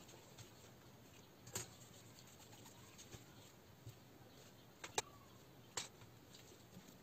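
Near silence broken by a few faint, sharp clicks as a long hex driver turns a screw into the plastic rear bulkhead of a 1/10 RC buggy chassis.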